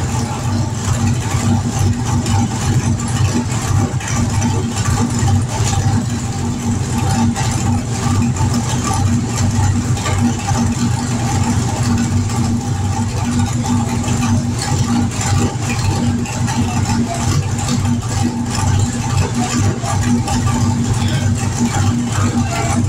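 Circle-track race car's carbureted engine, fired up for the first time after its build, running at a steady idle.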